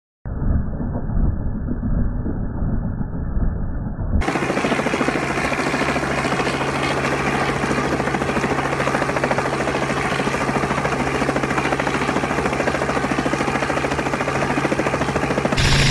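Robinson R44 helicopter hovering close by: steady engine and rotor noise with a fast even beat from the blades. For the first four seconds the sound is muffled, then suddenly full and clear.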